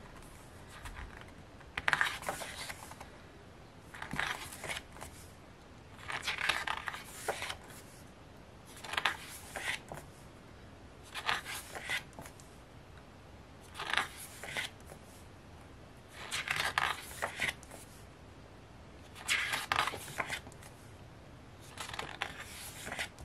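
Pages of a photobook being turned one at a time by hand, a short papery swish about every two to three seconds.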